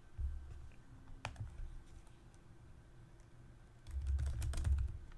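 Typing on a computer keyboard: one click about a second in, then a quick run of keystrokes near the end.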